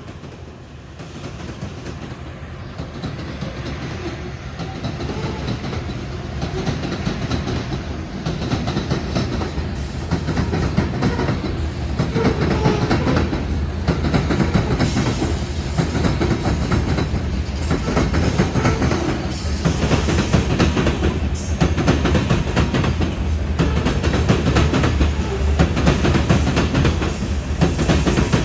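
Union Pacific freight train of two-bay hopper cars rolling past, its wheels clacking rhythmically over the rail joints over a steady rumble. The sound grows louder over about the first ten seconds, then stays loud and steady.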